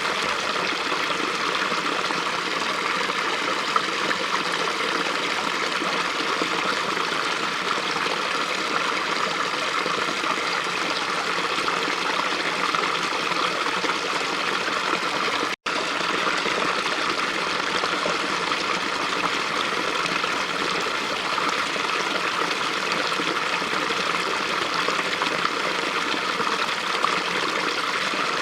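Small stream running steadily, water rushing and trickling over rocks. About halfway through, the sound cuts out for an instant.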